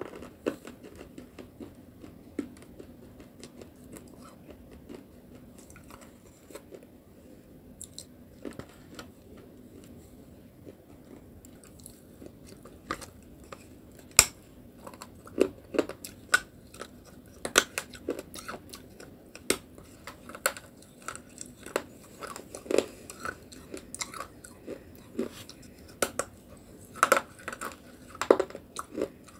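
A person biting and chewing a thick piece of edible clay close to the microphone, with sharp crunches. The crunches are sparse at first and come more often from about twelve seconds in.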